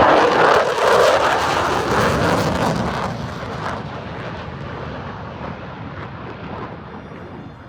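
Jet aircraft passing at an air show: a loud rush of jet engine noise, loudest about a second in, then fading away over several seconds as it recedes.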